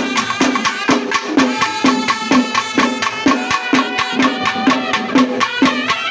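Music with drums keeping a steady beat of about two strokes a second under a sustained melody line.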